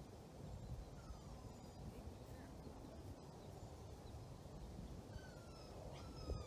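Faint low rumble of background noise, with a bird's short falling chirps about a second in and again in a run of several from about five seconds in.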